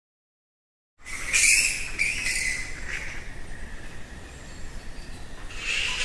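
Many bats squeaking and squawking together, a dense, high chirping chorus that starts abruptly about a second in after silence.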